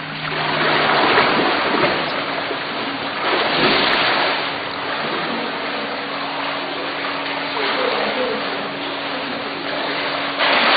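Swimming-pool water splashing and sloshing as swimmers move through it, a steady rushing with a few swells, over a faint steady low hum.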